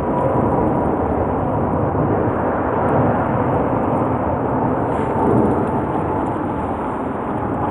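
Strong wind blowing across the microphone: a steady, loud rushing rumble.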